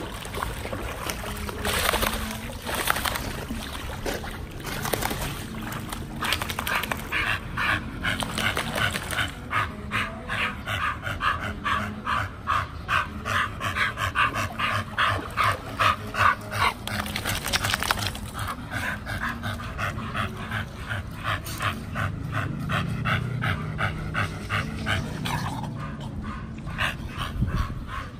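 A pit bull panting in a fast, even rhythm of several breaths a second, mixed with whimpering, starting a few seconds in and breaking off briefly about two-thirds of the way through.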